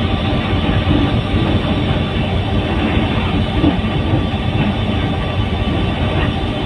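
Train running along the track, heard from on board: a steady, unbroken rumble of wheels on rails and carriage noise.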